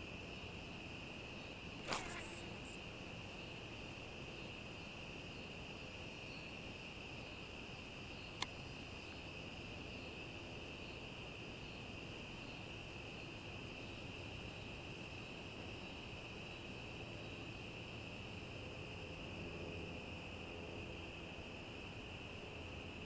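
Steady, unbroken chorus of crickets and other insects, a shrill continuous trill. A sharp click sounds about two seconds in and a small tick later on.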